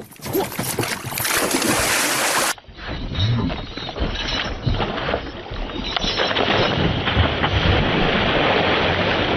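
Wind buffeting the microphone over water noise, with rumbling gusts. The sound changes abruptly about two and a half seconds in, where one recording cuts to another of the same kind.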